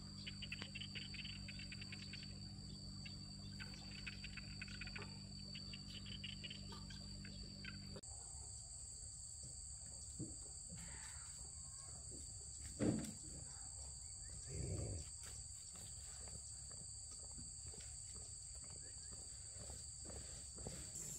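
Faint, steady high-pitched insect chorus, with a change in the background about eight seconds in and a brief knock a few seconds later.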